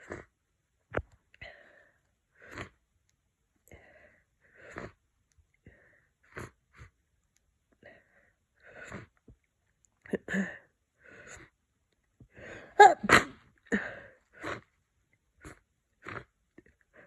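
A person with a congested head cold sniffing and catching their breath in short bursts, then sneezing loudly several times in quick succession about thirteen seconds in.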